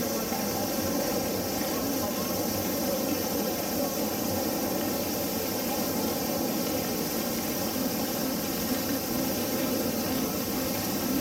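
Steady outdoor background noise, an even hum and hiss with no distinct event standing out.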